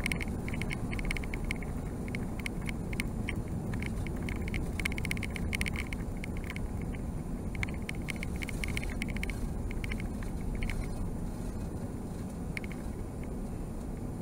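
Airbus A380 cabin noise during the climb after takeoff: a steady low roar of the engines and rushing air heard from inside the cabin, with bursts of light rattling that die away about eleven seconds in.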